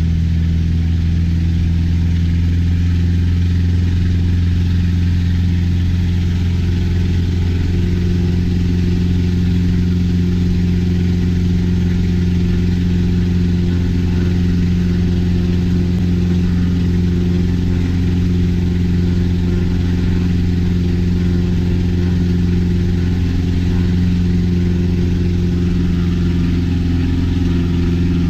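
Lycoming O-320 160-horsepower flat-four aircraft engine running steadily at a constant speed during a run-up, its pitch and loudness holding even throughout.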